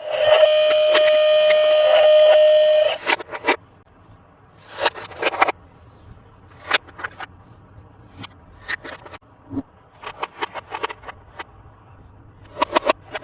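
An electronic toy sound plays a loud, steady tone for about three seconds, then stops suddenly. It is followed by scattered clicks, taps and short rustles of plastic toy parts and packaging being handled.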